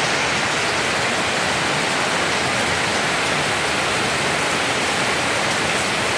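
Steady, even rushing of heavy rain and water over a flooded street, with no let-up.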